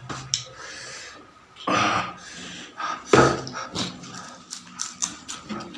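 Close-miked eating sounds: a person chewing and smacking food, with scattered wet clicks and a few louder noisy bursts about two and three seconds in.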